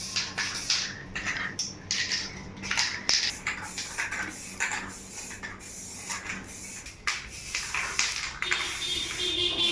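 Irregular short bursts of hissing, scraping noise with light metallic clinks, from hand work on wheel hub parts.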